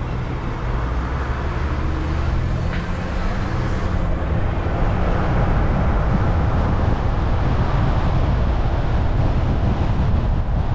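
Steady road and wind noise from a car driving along a city street, with a low engine hum in the first few seconds. The noise grows a little louder about five seconds in, as the car picks up speed.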